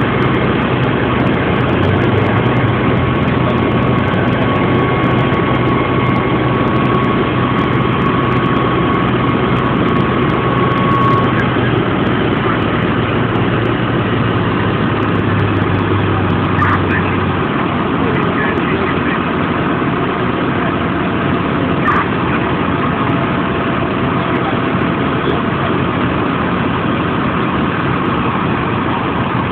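Fire apparatus diesel engine idling steadily, a dense low rumble. Its low hum eases off about two-thirds of the way in, and a thin whine in it stops about a third of the way in.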